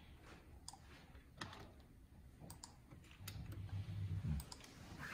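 Scattered, irregular clicks of a computer mouse and keyboard while a PLC program is being edited.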